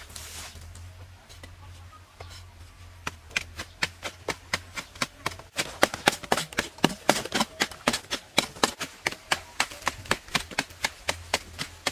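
Rapid, sharp crunching clicks of crisp food, about four a second, starting about three seconds in and growing louder about halfway through, over a low steady hum.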